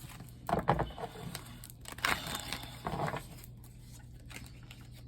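Tarot cards being handled and shuffled: two short bursts of papery rustling and riffling, about half a second in and again at about two to three seconds, over a faint steady hum.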